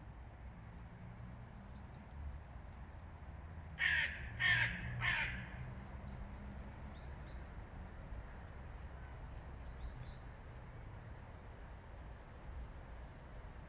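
A bird gives three loud, harsh calls in quick succession about four seconds in, then small birds chirp faintly and briefly.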